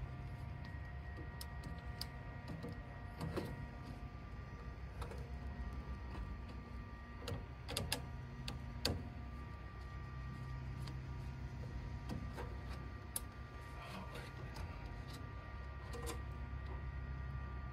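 Scattered small clicks and taps of a screwdriver working the terminal screws on a spiral mixer's transformer, the sharpest about three, eight and nine seconds in, over a steady low background hum.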